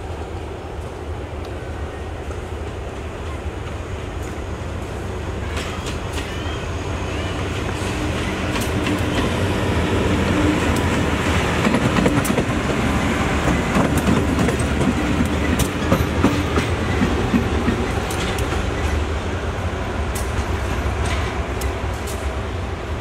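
SRT GEA-class diesel-electric locomotive No. 4538 running light at low speed: a steady diesel engine rumble with wheels clicking over rail joints and points. It grows louder to a peak in the middle as it passes close by, then eases off.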